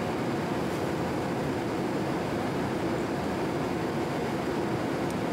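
Boeing 787 Dreamliner cabin noise: a steady, even roar with no breaks.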